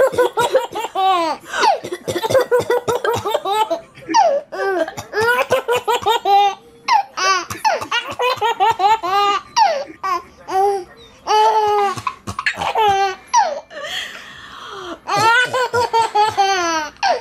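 A baby laughing hard in repeated bouts of quick, rhythmic high-pitched laughs, with short pauses for breath between the bouts.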